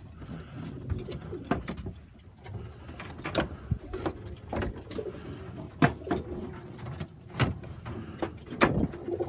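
Racing pigeons cooing in a box, with a scatter of sharp taps as they peck at their feed.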